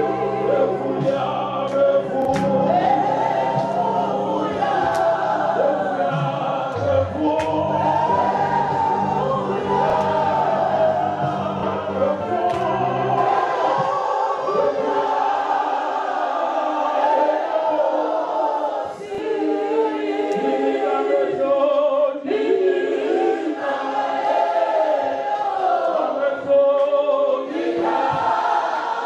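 Church congregation singing a gospel hymn together, many voices, mostly women's. Low sustained notes run under the singing and stop about halfway.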